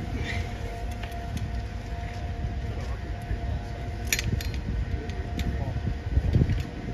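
Outdoor street ambience with a steady mechanical hum held on two even tones over a low rumble, like machinery or an engine running, with a few light clicks, the clearest about four seconds in.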